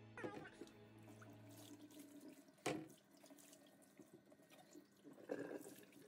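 Faint kitchen tap running into a sink while a plastic refrigerator drawer is rinsed and wiped by hand, with small plastic knocks and one sharp clatter about two and a half seconds in.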